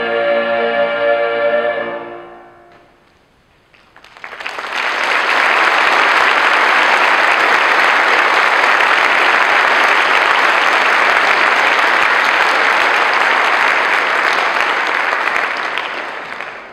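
A mixed choir holds its final chord, which dies away after about two and a half seconds. After a moment of near silence the audience applauds steadily for about twelve seconds, tapering off near the end.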